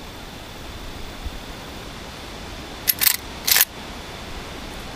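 Remington 870 short-barrel 12-gauge pump shotgun: about three seconds in, a click is followed by two short, loud cracks about half a second apart.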